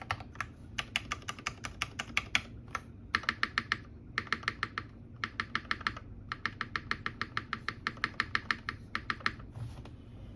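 Typing on a custom mechanical keyboard with lubed Cherry MX Black Hyperglide linear switches, top-mounted on an aluminum plate and fitted with GMK keycaps: quick runs of keystrokes with short pauses between them.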